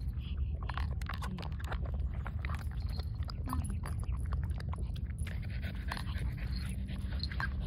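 Two French bulldogs eating together from a small plastic bowl: quick, wet chewing and smacking with many small clicks.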